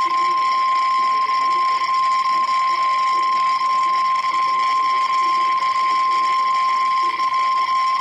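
Emergency weather alert warning tone for a tornado warning: one steady, loud, high-pitched tone, the single 1050 Hz warning alarm tone used by NOAA Weather Radio, held unbroken.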